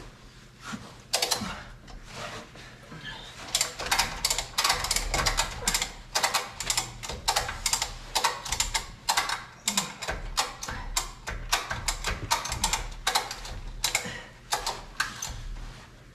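Ratchet strap being cranked tight: runs of sharp ratchet clicks, several a second, starting a few seconds in after a couple of single clicks.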